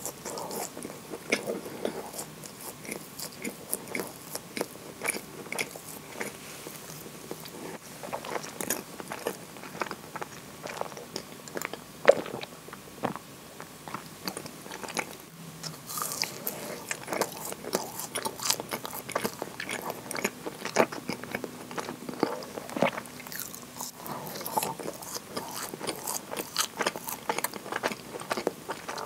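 Close-miked chewing of moist kinako and chocolate-chip scones: many small, wet mouth clicks and smacks. There is a quieter stretch about halfway through, during a sip of coffee milk.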